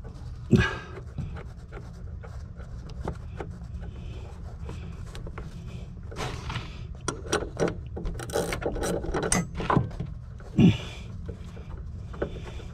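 Metal clicks and clinks of a wrench working loose the upper nut on a Fox-body Mustang's rear shock absorber stud, with a flurry of them in the second half and a couple of louder knocks, over a steady low hum. The nut comes off easily because it was fitted very loose.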